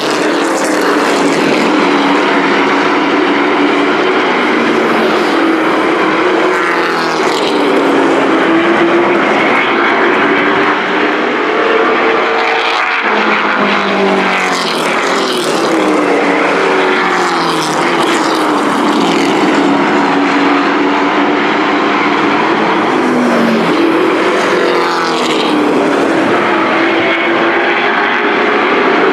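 A pack of pickup-bodied race trucks running at race speed on a paved oval. Several engines are heard at once, their pitch rising and falling as the trucks lift for the turns and accelerate past.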